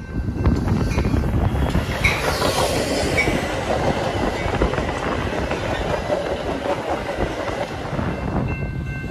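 Metra commuter train of stainless bilevel gallery cars, cab car leading, rolling past close by: a steady wheel-on-rail rumble with clickety-clack over the rail joints, and two short high squeaks about two and three seconds in.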